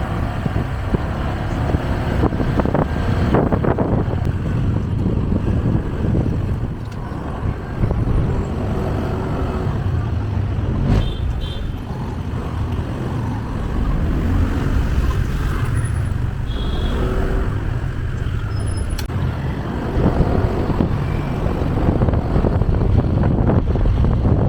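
Road traffic: vehicle engines running in busy city traffic, a steady low rumble with a few brief higher-pitched tones in the middle.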